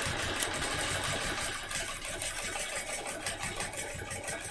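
Home sewing machine running steadily, its needle stitching rapidly while free-motion quilting.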